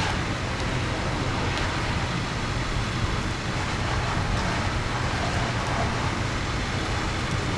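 Steady wash of rain and street noise on a flooded road, over the low, even rumble of a vehicle engine.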